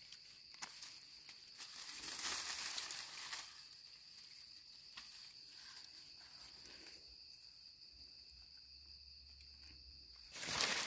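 Dry grass and leaf litter rustling and crackling as wild mushrooms are cut free with a knife, with a louder burst of rustling about two to three seconds in and another near the end. A steady high insect drone runs underneath.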